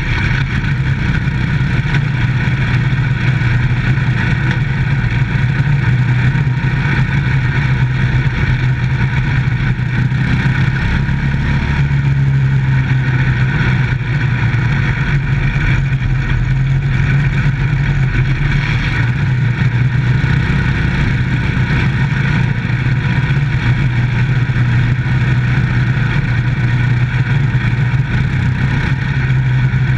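Microstock dirt-track race car's engine running hard at steady, high revs, heard from inside the cockpit as the car laps the track, with a constant rumble of the car and track noise underneath.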